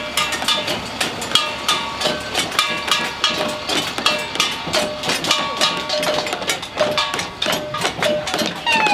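Rapid clanking metallic strikes, several a second, each with a short ringing tone. A two-tone emergency-vehicle siren starts sweeping right at the end.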